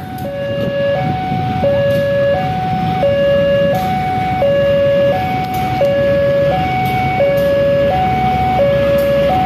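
Railway level-crossing warning alarm sounding a two-tone electronic chime, alternating high and low notes about every 0.7 s, over the low running of a diesel locomotive moving slowly along the track.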